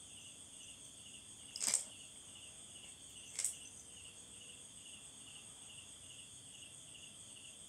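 A handheld rattle shaken twice, once about a second and a half in and again about three and a half seconds in. Behind it, insects chirp steadily in an even pulsing rhythm.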